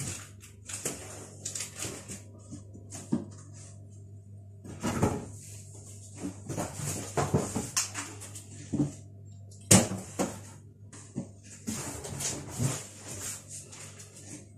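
Groceries being unpacked and handled: packaging rustling, with items knocking and clinking against each other now and then, over a steady low hum.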